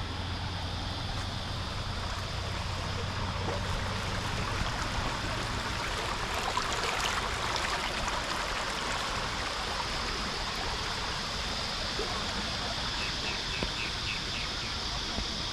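Steady rain falling, an even rushing hiss that swells for a few seconds midway. A few short high chirps sound near the end.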